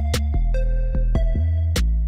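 Electronic background music with a heavy bass and sharp, evenly spaced drum-machine hits.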